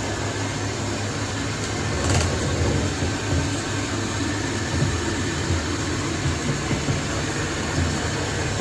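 Xiaomi Mi Robot Vacuum-Mop Essential robot vacuum running, a steady machine noise with a low hum from its suction fan and brushes.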